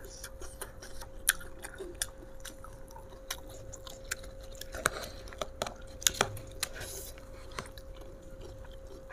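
Chewing of raw lettuce leaves, with irregular crisp crunches and wet mouth clicks. A faint steady hum runs underneath.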